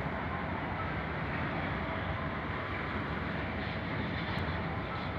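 Steady rumbling noise of a vehicle in motion.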